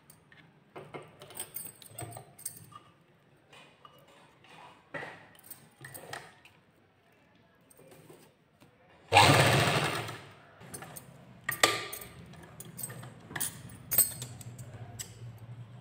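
Simran sewing machine running a short burst of stitches about nine seconds in, sewing sequin lace onto a small fabric piece. Scattered small clicks of the work being handled and positioned come before and after.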